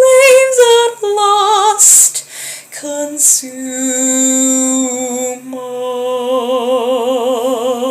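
A woman singing a slow, sustained line, ending on a long held note with wide vibrato.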